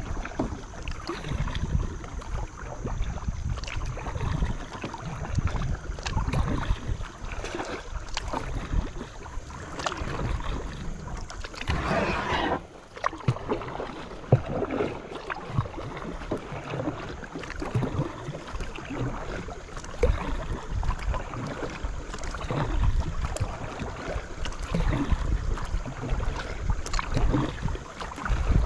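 A small boat being paddled on a shallow creek: paddle strokes and water splashing and dripping, with scattered small knocks and uneven low wind rumble on the microphone. There is a louder rush of noise lasting about a second, around twelve seconds in.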